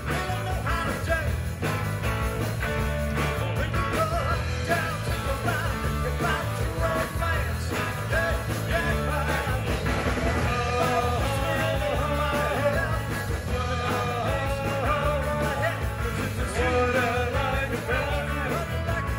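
Live rock and roll band playing: two electric guitars, electric bass and drums, steady and loud. A male lead vocal comes in about halfway through.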